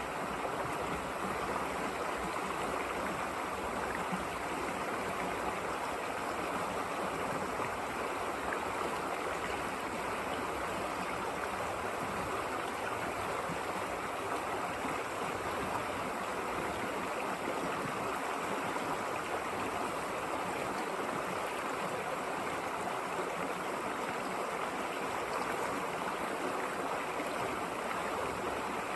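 River water rushing and babbling steadily over rocks, a constant even flow.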